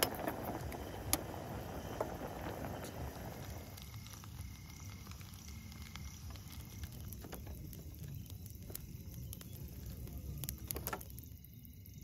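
Water boiling hard in a metal camping pot, bubbling, with a spoon clinking against the pot a few times. Then quieter ticks and taps of food cooking in a pan on a gas camp stove, with a cluster of sharp clicks near the end.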